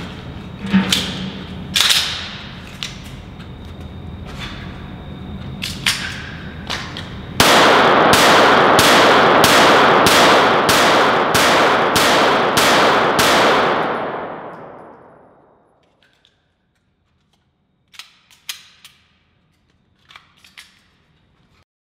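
Glock 17 9 mm pistol firing CZ Limit-Z 140-grain full-metal-jacket rounds: a few separate shots or sharp clicks at first, then a steady string of about a dozen shots, roughly two a second, echoing and running together before dying away. A few faint clicks follow near the end.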